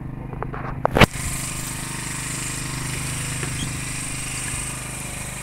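A fishing boat's engine running steadily with a low drone. A few clicks and one sharp knock come about a second in, and after the knock a steady hiss joins the drone.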